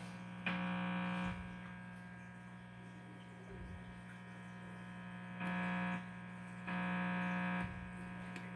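Amplifier buzz, a steady electrical hum with many overtones, that gets louder three times when the metal part on the keyboard is touched, then drops back each time.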